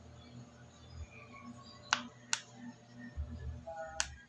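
Three sharp clicks over a faint low hum from an XH-W3001 digital temperature controller as its button is pressed and held, two close together about two seconds in and one near the end.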